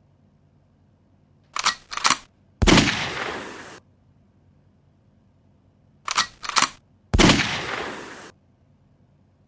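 Gun sound effect: two quick, sharp cocking clicks followed by a single loud gunshot whose echo dies away over about a second. The sequence plays twice, about four and a half seconds apart.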